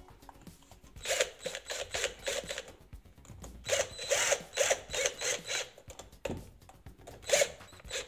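Cordless drill-driver driving the screws that fix a light switch's metal mounting frame into the wall box. It runs in two stretches of about two seconds each, then a short one near the end.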